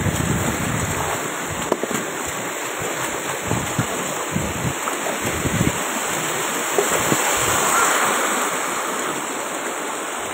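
Muddy floodwater from the mountain rushing fast across a road, a steady rush of water, overflowing after a night of heavy rain. Wind buffets the microphone with low thumps through most of it, easing near the end.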